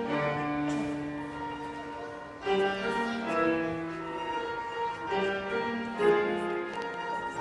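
Classical instrumental music: strings and piano playing sustained, slowly changing chords, with new phrases beginning about two and a half seconds in and again near the end.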